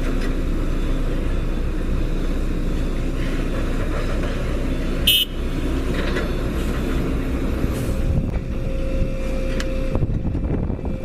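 Engine of heavy construction machinery running steadily, with a brief high beep about five seconds in.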